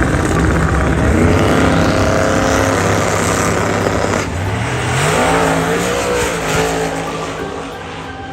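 Race car engine revving and accelerating loudly, its pitch climbing about four seconds in, then easing off near the end.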